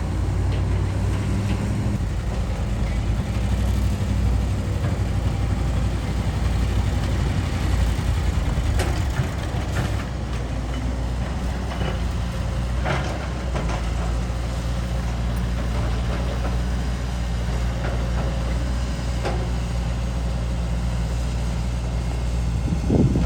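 Heavy diesel earthmoving machinery, an excavator loading soil onto a truck, running steadily. A few short clanks and scrapes come through, about a third of the way in and again past the middle.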